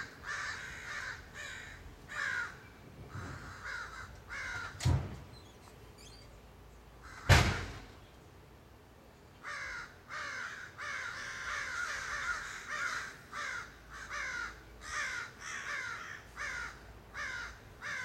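Several American crows cawing over and over in quick runs of harsh calls. In a lull in the middle, two sharp knocks sound a couple of seconds apart; the second is the loudest sound.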